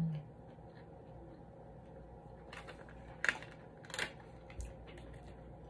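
Plastic takeout clamshell container handled and opened, giving a few short crackling clicks about three and four seconds in, over a faint steady low hum.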